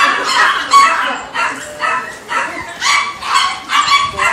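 Small dog barking in a rapid run of high-pitched yaps, two or three a second.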